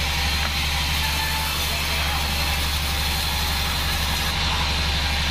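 Homemade band sawmill running steadily: a constant low, pulsing drive hum with an even hiss from the blade over it.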